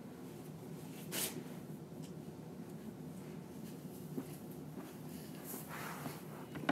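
Mostly quiet room tone with a few faint rustles, the clearest a short swish about a second in and another soft one near the end.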